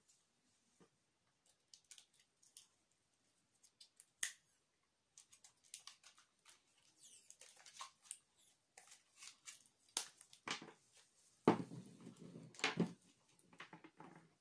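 Hands handling thin wires and a roll of electrical tape: scattered small clicks and rustles, with a few louder rasping stretches near the end.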